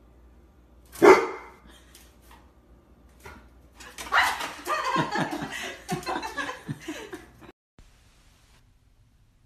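A large dog barking: one loud bark about a second in, then a quick run of barks from about four seconds in that stops abruptly after three and a half seconds.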